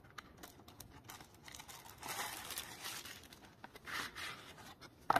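Plastic sleeve crinkling and cardboard box rustling as a packaged knife is pulled out of its box. There is one longer burst of crinkling about two seconds in, a shorter one near four seconds, and light handling clicks around them.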